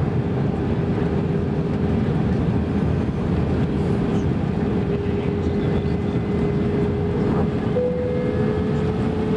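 Cabin noise inside an Airbus A321-231 in flight: a steady rush of air and engine hum from its IAE V2500 engines. A steady engine tone runs through it and steps up slightly in pitch near the end, a small change in engine power.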